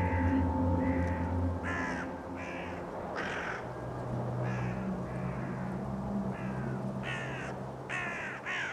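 Crows cawing repeatedly, about a dozen harsh caws that come faster near the end, over a low steady drone.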